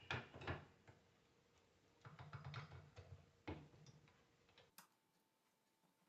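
Quiet clicks and light metallic knocks from hand tools loosening the bolts on an alternator's end cover, with a short patch of rattling about two seconds in; the last stretch is near silence.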